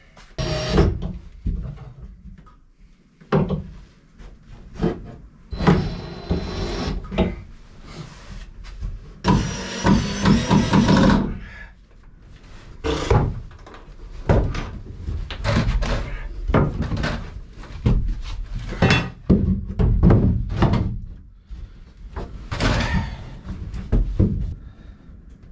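Knocks and clatter of plywood boards being handled and fitted inside a small wooden shack, with two short runs of a cordless drill driving screws, about six and ten seconds in.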